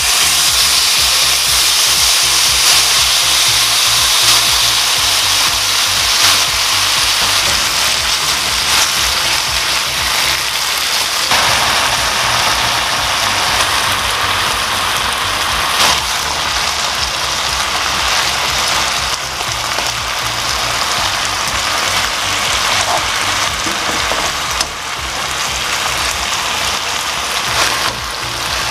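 Soy-marinated sliced pork sizzling loudly in a hot nonstick frying pan over high heat, a steady dense hiss with a few louder spits. The sizzle starts the moment the meat goes into the pan.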